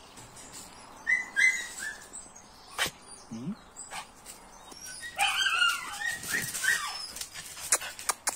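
Small dogs whining and yipping in play: a few short, high squeaks about a second in, then a burst of yelps and whines from about five seconds, with a few sharp taps between.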